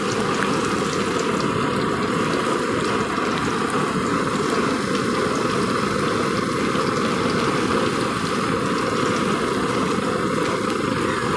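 Slime deep-frying in a kadai of hot oil: a steady, dense sizzling with fine crackle as the water in the slime boils off.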